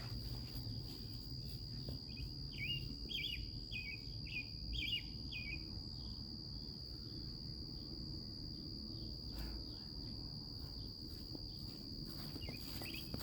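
A steady high-pitched insect trill, like crickets, with a bird chirping repeatedly a few seconds in, over a low outdoor rumble.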